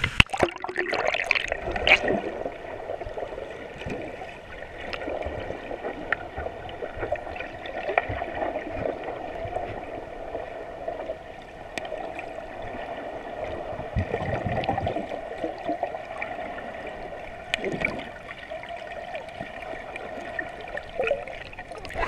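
Churning water of a waterfall's plunge pool heard from underwater through an action-camera housing: a steady wash with scattered clicks and bubbling, and loud splashing in the first couple of seconds as the camera goes under.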